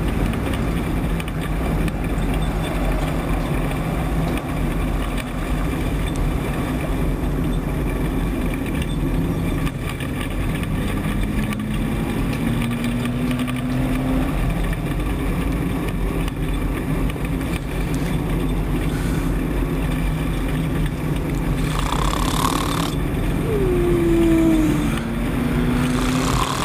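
Race truck engine running, heard from inside the cab, with a steady hum and rattle. Its pitch rises slowly about 11 to 14 seconds in and drops near the end, and there are two short rushes of noise late on.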